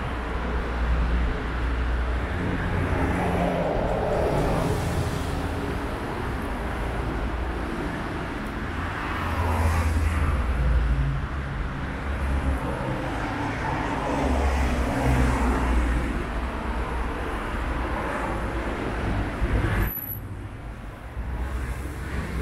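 City street traffic: cars passing one after another over a steady low rumble of engines and tyres. The noise drops off suddenly about twenty seconds in.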